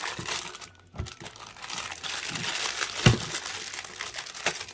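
Plastic packaging crinkling and rustling as small toys are handled and unwrapped, with scattered small clicks and one sharp knock about three seconds in.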